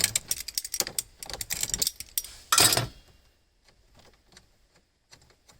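Small clicks and rattles of plastic and metal parts being handled as the headlight switch is worked loose from the dash, with one louder scraping rustle about two and a half seconds in, then only a few faint ticks.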